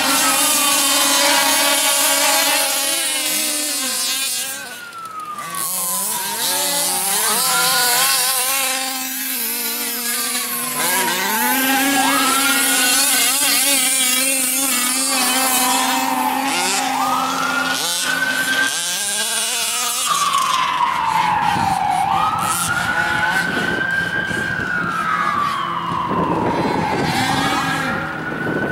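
Several gas-powered large-scale RC cars, Losi minis and HPI Baja 5Bs with small two-stroke engines, racing together: the engines rev up to a high whine and drop back again and again as the cars accelerate and ease off, their pitches overlapping.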